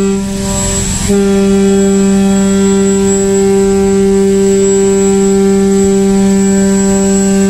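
Ship's horn sounded for a launch: one long steady blast ends just after the start, a short rush of noise fills the gap, and a second long blast starts about a second in and holds on at one pitch.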